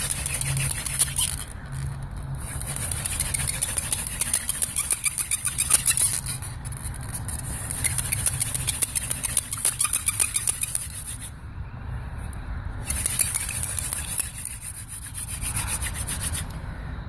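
Hand-drill friction fire: a mullein spindle spun back and forth between the palms, its tip grinding in a divot in a willow hearth board. The rapid rubbing comes in about three runs, with brief pauses between.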